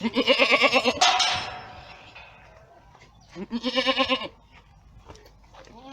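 Boer goats bleating: two loud, quavering bleats of about a second each, the second one some three seconds after the first.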